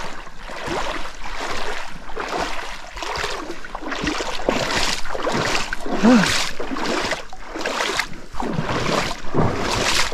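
Rubber boots wading through water-filled holes in a track, splashing and sloshing with each step in a steady walking rhythm.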